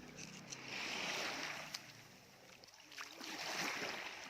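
Small waves washing up over the sand at the water's edge, the wash swelling and ebbing twice.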